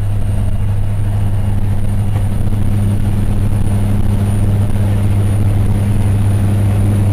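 Single-engine propeller plane's engine and propeller droning steadily, heard from inside the cabin as the plane rolls along a grass runway.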